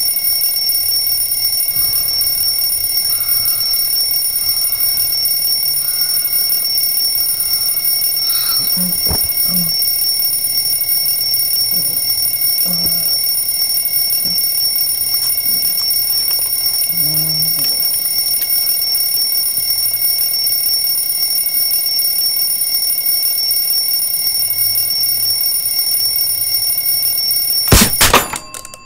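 Twin-bell mechanical alarm clock ringing loudly and without a break. It cuts off abruptly near the end with a few loud knocks.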